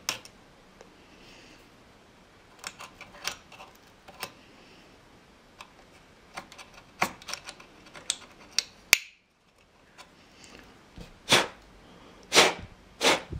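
Hobby knife cutting and prying at the plastic shroud of a motherboard's front-panel header: scattered sharp clicks and short scrapes of blade on plastic, ending with three louder, longer scrapes.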